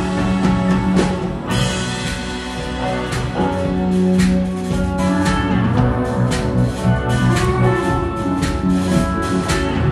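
A live band playing a song: held notes over drum hits.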